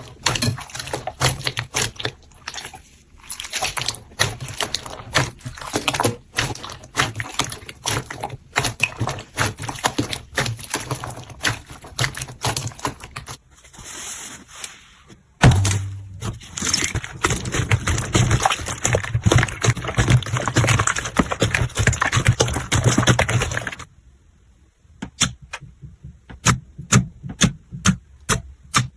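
Slime being squeezed, poked and stretched by hand, giving rapid sticky clicks, pops and crackles. It changes abruptly twice, at about the middle and again near the end, where the clicks become sparser and sharper.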